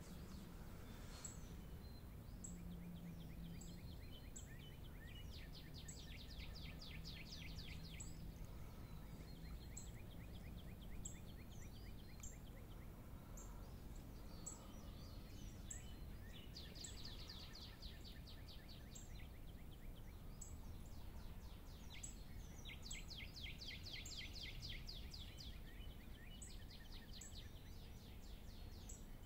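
Faint outdoor birdsong: short, high chips repeat throughout, and a fast trill comes three times, each lasting two to three seconds. A steady low hum sits underneath and stops about a third of the way through.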